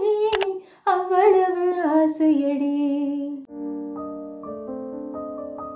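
A woman sings a Tamil film song unaccompanied, a phrase that slowly falls in pitch, with a short click and a brief break under a second in. About three and a half seconds in the singing stops and soft piano chords begin.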